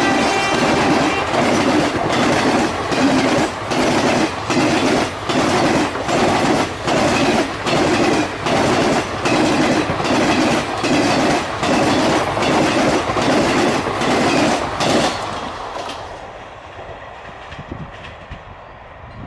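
Coaches of a passenger express train rushing past at high speed, the wheels clattering over the rail joints in a steady rhythm of about one and a half beats a second. The locomotive horn's last note dies away at the very start, and the clatter stops about 15 seconds in as the last coach goes by, leaving a faint rumble.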